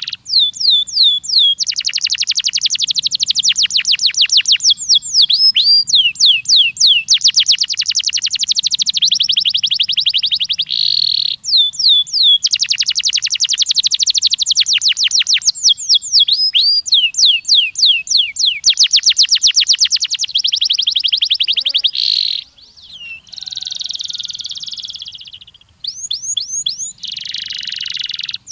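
Domestic canary singing a long song of rapid rolling trills and fast downward-swept whistled notes, with a brief pause past the middle and a held buzzy phrase after it.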